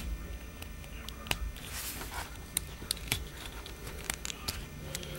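Hard plastic parts of a Transformers Generations Darkmount action figure clicking and knocking as they are twisted and fitted together by hand during transformation. It is a series of irregular sharp clicks, the loudest right at the start.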